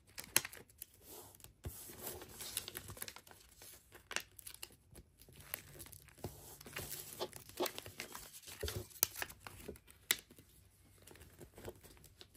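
A sheet of origami paper rustling and crinkling as fingers fold its corners to the middle and press the creases flat, in irregular crackles and rustles.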